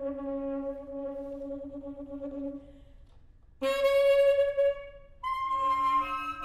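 Saxophone playing long held notes: a low note that fades away after about two and a half seconds, a brief silence, then a higher held note, and a further sustained note near the end.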